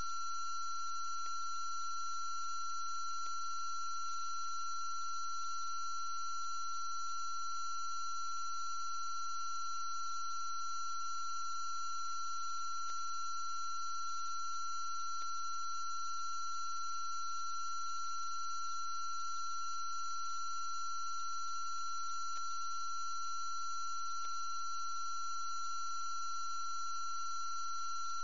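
A steady electronic tone with several higher whistling tones and a low hum underneath, all unchanging, with a handful of faint ticks scattered through it.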